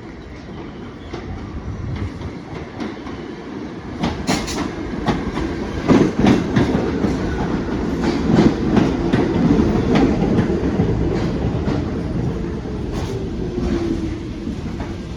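New York City subway train running through the station, its wheels clicking over rail joints. It grows louder about four seconds in, is loudest in the middle, eases off toward the end, and a short wheel squeal is heard near the end.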